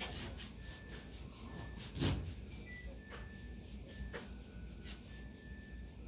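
A child wiping and scrubbing drawings off a painted wall, making a series of short rubbing strokes, with one louder bump about two seconds in.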